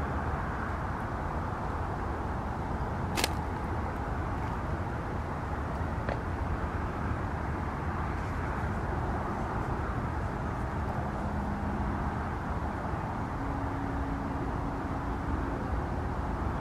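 Steady outdoor background rumble with no speech, and one sharp click about three seconds in.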